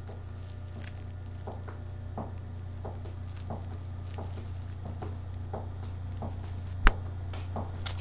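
Low, steady hum with faint, irregular soft ticks like drips or creaks over it, and one sharp crack near the end.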